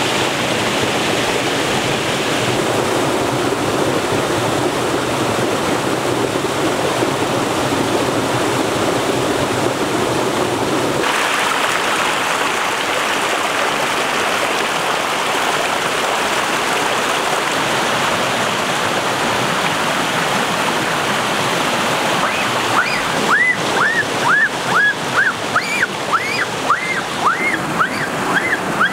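Stream water rushing and splashing over rocks, a steady noise that shifts in character twice as the shot changes. Near the end a quick series of short, arched chirps, about two a second, rides over the water.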